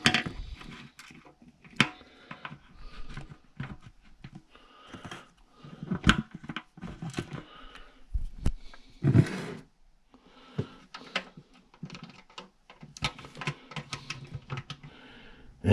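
Kitchen handling sounds while ribs are coated with barbecue sauce in a slow cooker: irregular clicks, taps and rustling of hands, food and containers, with a louder burst about nine seconds in.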